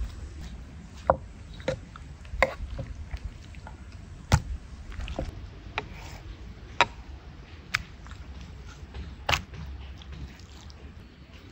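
Knife cutting raw meat on a wooden cutting board: wet slicing with irregular sharp taps and knocks of the blade and meat against the board, about nine in all.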